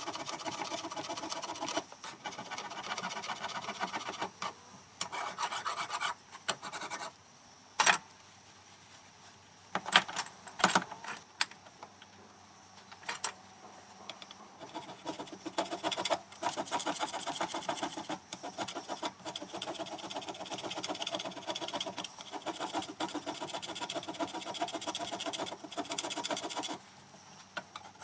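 Metal tailstand for a Gingery milling machine being worked down by hand with rapid back-and-forth rasping strokes, taking off a few thousandths to flatten it. The strokes break off about a third of the way in for a few seconds, with a few sharp knocks, then resume.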